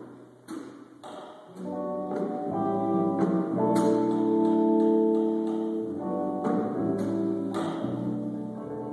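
Small jazz combo playing: electric archtop guitar chords over upright double bass, with drum-kit and cymbal strikes. The band is thin at first and grows fuller about two seconds in.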